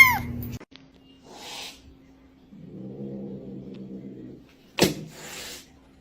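A cat's loud meow, falling in pitch, ends just after the start. Then come quieter low rumbling sounds, a single sharp click about five seconds in, and a short breathy noise.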